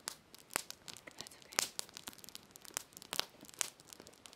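Crinkly rustling with about a dozen sharp, irregularly spaced crackles, as of crinkly material being handled.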